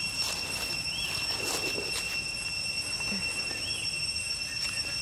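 A steady, high-pitched insect drone that holds one pitch throughout, with a few short faint chirps and light rustling clicks over it.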